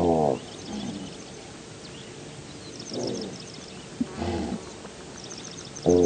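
An antelope, billed as a gazelle, giving a series of short calls that fall in pitch, about five in all. The loudest comes right at the start and another just before the end, with faint high chirps behind them.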